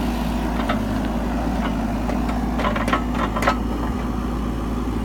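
Mini excavator's diesel engine running steadily, with several short knocks, most of them bunched together a few seconds in.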